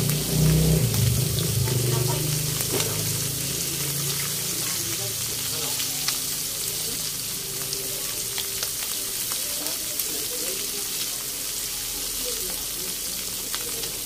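Whole round scad (galunggong) frying in hot oil in a wok: a steady sizzle with scattered crackling pops. A low hum sounds through the first couple of seconds.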